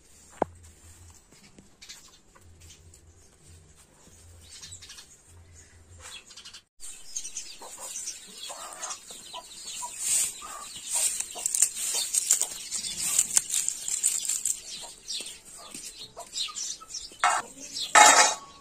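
Dry garlic being peeled by hand: papery skins crackling and rustling, faint at first and then busy, with a louder clatter near the end as the pieces drop onto a steel plate.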